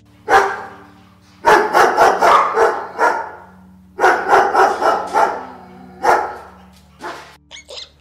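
Dog barking in quick runs of several barks with short pauses between them.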